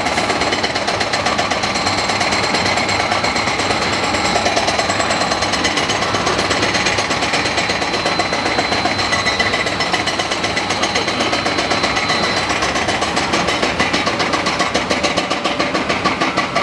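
Rapid, continuous mechanical hammering that stops abruptly near the end.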